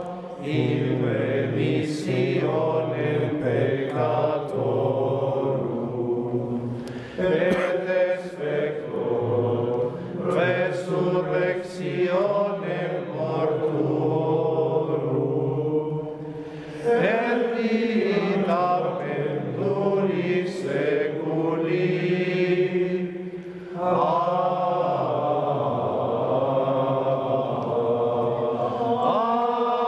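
Voices singing a slow liturgical chant in unison, in long phrases of held notes with short breaks between them.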